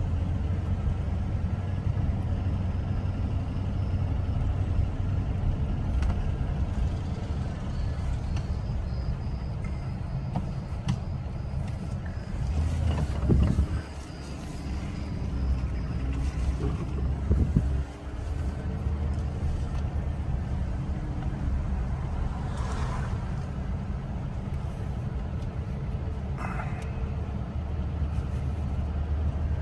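Steady low engine and road rumble of a vehicle driving slowly, heard from inside the cab, with a couple of brief knocks or bumps about 13 and 17 seconds in.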